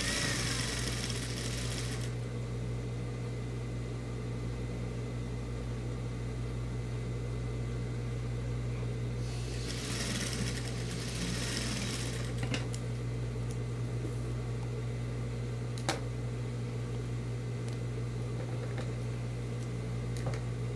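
Industrial straight-stitch sewing machine running in two short bursts as fabric is stitched, the first right at the start and the second about ten seconds in, over a steady low hum. A single sharp click follows a few seconds later.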